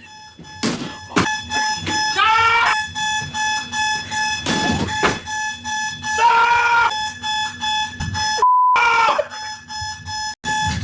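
Electronic alarm clock beeping without a break, with a voice crying out over it a few times. Near the end the alarm cuts out briefly for a single clean beep.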